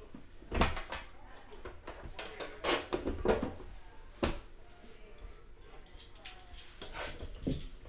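Hands handling a metal card tin and the pack box resting on it: a scattering of sudden knocks and taps, the strongest about half a second in and about four seconds in, with a cluster of them around three seconds in.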